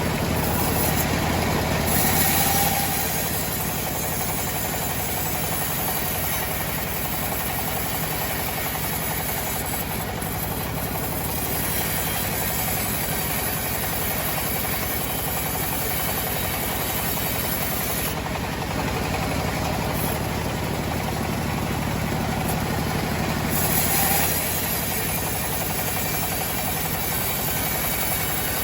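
Engine of a homemade sawmill running steadily with a fast low chugging, swelling briefly about two seconds in and again near the end.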